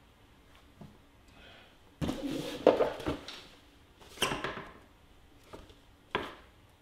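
A cardboard jigsaw puzzle box being picked up and handled on a table: short bursts of scraping and knocking about two and four seconds in, and a sharp tap near the end.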